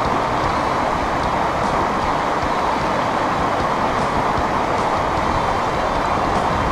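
Shallow river water rushing over stony riffles, a loud, steady rush.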